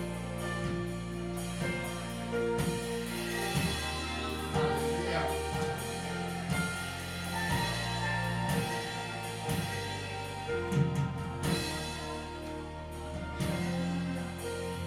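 Church worship music: a band with keyboard chords, bass and drum kit playing at a slow, steady pulse, with a little singing.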